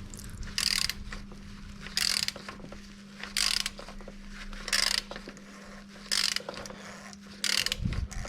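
Ratchet wrench clicking in six short bursts, about one every second and a half, as it tightens an oil filter housing cap back in. A steady low hum runs underneath.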